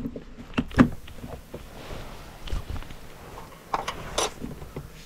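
Scattered knocks and plastic clicks as a UPVC glazing bead is prised loose from the window frame with a flat scraper. There is a heavier knock a bit under a second in and a sharp click about four seconds in.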